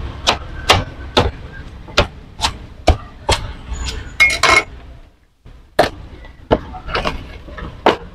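Large knife chopping a fried martabak telor into pieces on a wooden board: a string of sharp knocks, about two a second, as the blade strikes through to the board. The chopping pauses briefly about five seconds in, then resumes.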